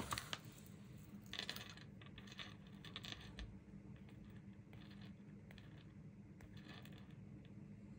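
Faint, scattered taps and rustles of fingers handling and pressing strips of washi tape onto paper pages, a few quick clicks at a time.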